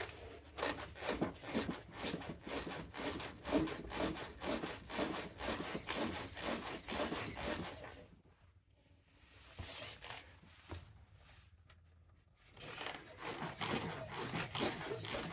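Irregular rubbing and scraping with many light knocks, stopping briefly twice in the middle.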